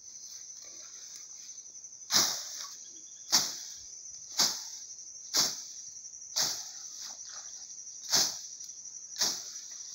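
A long-handled blade slashing through tall grass in seven swishing strokes, about one a second, starting about two seconds in. Under it, a steady high chirring of crickets.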